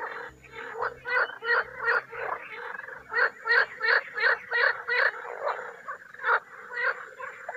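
Frogs croaking: rapid runs of short croaks, about three to four a second, thinning to a few single calls near the end.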